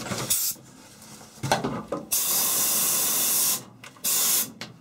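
Compressed air hissing from an air blow gun in about four blasts, the third the longest. The air is being blown into a hole in the truck cab's body to carry a string through the cavity.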